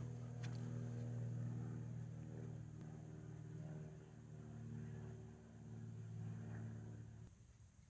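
Faint, steady engine hum with several stacked tones, stopping shortly before the end, with a couple of soft knocks at the start.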